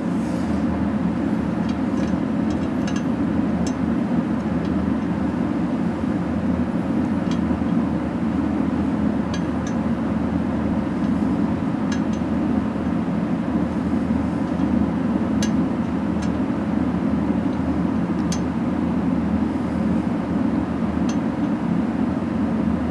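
Steady low drone of unseen background machinery, with scattered faint metallic clicks as a small set screw is worked by hand into its threaded hole in the rusty end housing of an antique Allis-Chalmers electric motor, not yet catching its threads.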